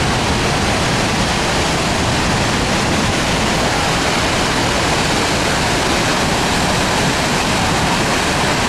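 A large waterfall pouring, heard from close by in its spray: a loud, steady rush of falling water.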